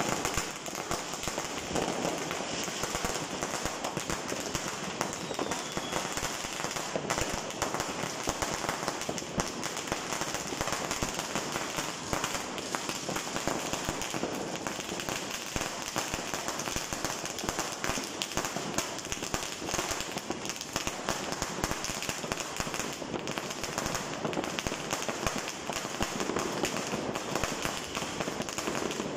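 A long string of firecrackers going off on the street, a rapid, unbroken crackle of small bangs that keeps up steadily without a pause.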